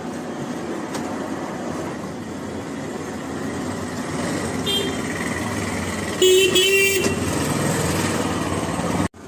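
Steady road traffic noise with a vehicle horn honking: a short toot a little before halfway, then a longer, louder honk about six seconds in.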